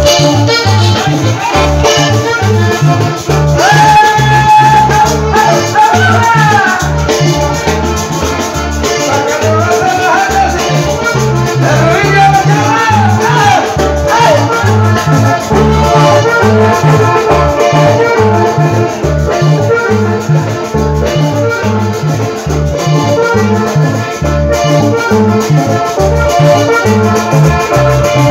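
Loud Latin dance music with a steady pulsing bass beat and a melody line over it.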